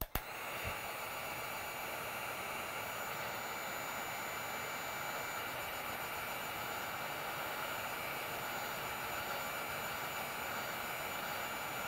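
Handheld electric heat gun switched on and blowing steadily: an even rush of hot air with a faint high whine. It is warming the plastic of a toy helicopter to loosen a tightly tabbed part.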